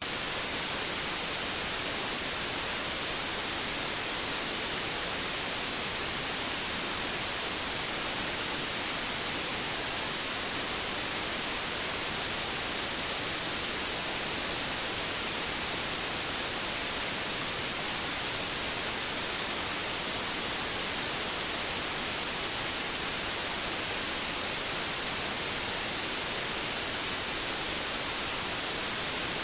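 Steady white noise: an even hiss, strongest in the treble, with no changes.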